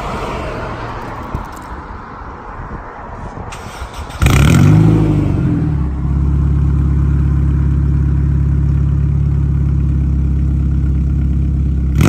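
Acura RSX Type S four-cylinder engine, with aftermarket headers and a tune, starting about four seconds in. Its revs swing briefly, then it settles into a steady idle.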